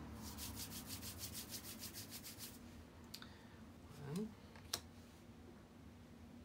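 Paper tarot cards being flicked off a deck one after another while counted through, a fast, even ticking of about eight cards a second for some two and a half seconds. A few light taps follow, with one sharp click near the end as a card is laid down on the pad.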